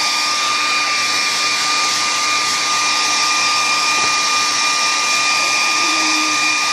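A small electric appliance running steadily: an even whirring hiss with a constant high whine that does not change.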